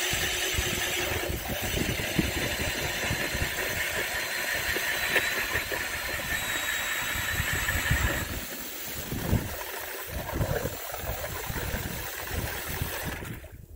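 Bosch 18-volt cordless drill spinning an ice auger, boring a hole through lake ice: a steady motor run with a faint high whine. About eight seconds in it turns quieter and uneven, then stops just before the end.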